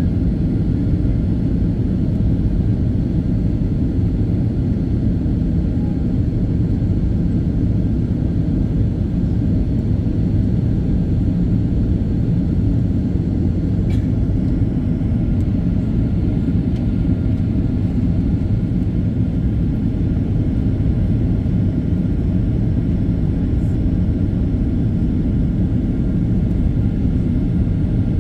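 Steady low rumble of a Boeing 737-800 in flight, engines and airflow heard from inside the passenger cabin, with one faint click about halfway through.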